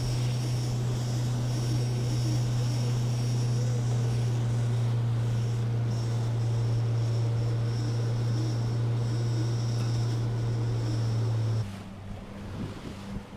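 Outboard motor driving a small boat at cruising speed: a steady drone with a constant low hum and a high whine over the rush of the hull and wake. About a second and a half before the end the sound drops abruptly to a much quieter wash.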